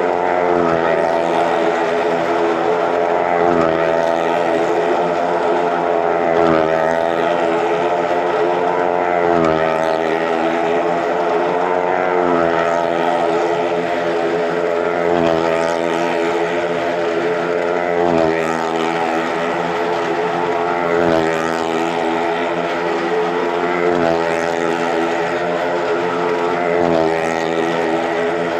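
Engine of a vehicle riding the vertical wooden wall of a well of death, running steadily. Its pitch and level swell and dip about every three seconds as it laps the drum.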